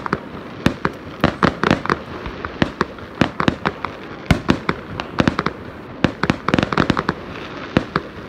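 Fireworks display: aerial shells bursting in an irregular string of sharp bangs, several a second.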